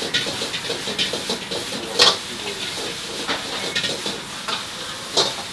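Vegetables stir-frying in a hot pan, sizzling, while a metal spatula or ladle scrapes and knocks against the pan, with a loud sharp clank about two seconds in and another near the end.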